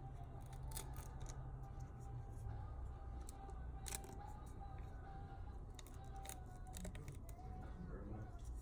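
Small hand tools clicking and scraping on a phone's frame as it is cleaned before a new screen is fitted, in scattered light strokes with a sharper click about four seconds in, over a steady low hum.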